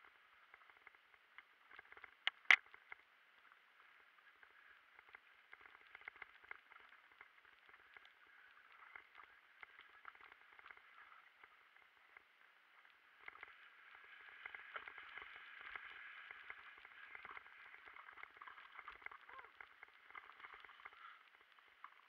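Muffled on-board sound of a mountain bike riding down a dirt singletrack: a constant crackle and rattle from tyres and bike over the ground, with one sharp knock about two and a half seconds in. From about 13 s to 21 s a louder steady rush of rolling and wind noise builds as the bike picks up speed, then drops away.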